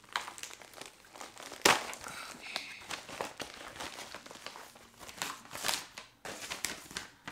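Packaging crinkling and tearing as a mailed package is opened by hand: a run of irregular crackles and rustles, with one sharp, loud rip about a second and a half in.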